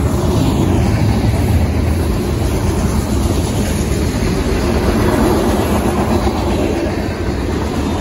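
Freight cars of a mixed freight train rolling past: a loud, steady noise of steel wheels running on the rails.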